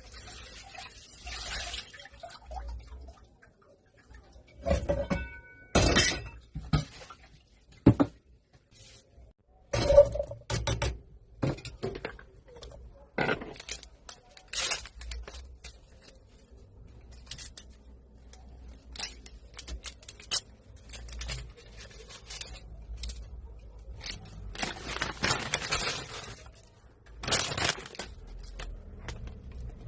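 Kitchen work on a lemon, garlic and ginger remedy: irregular sharp knocks and clicks of utensils and containers being handled. The loudest strikes come in the first half, and there is a longer noisy stretch near the end.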